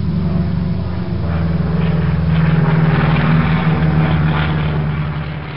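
Propeller airplane engine drone laid over a flight-map animation as a sound effect: a steady hum that grows louder through the middle and fades toward the end.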